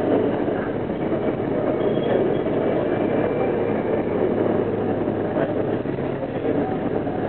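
Steady noise of an R42 New York City subway car heard from inside the car in a tunnel, with a low, even hum underneath.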